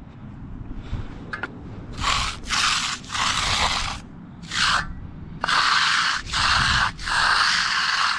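Hand trowel scraping over the edge of a firming concrete slab in repeated strokes, about seven sweeps starting some two seconds in, during hand finishing of the slab edges.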